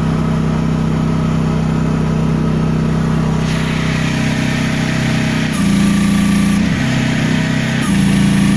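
Mini excavator engine running at high throttle with the hydraulics deadheaded against the relief valve; a hydraulic hiss builds from about halfway. Twice, for about a second each, the engine note changes under the load and a thin whine comes in as the system is pushed to relief pressure.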